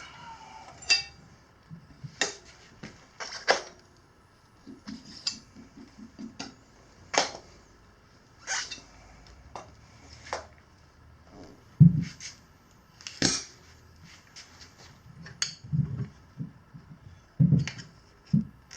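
Tire levers clicking, knocking and scraping against a dirt bike wheel rim at irregular intervals while a stiff knobby tire bead is pried on by hand, with a few heavier thuds near the middle and the end.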